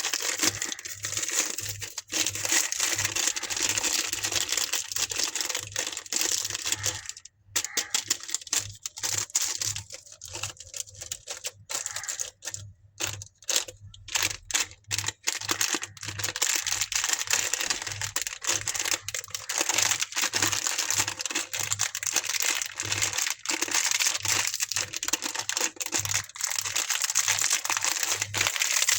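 Candy wrappers being crinkled and torn open by hand. The crinkling is dense and continuous, stops briefly about a quarter of the way in, then comes back as scattered crackles before turning dense again past the middle.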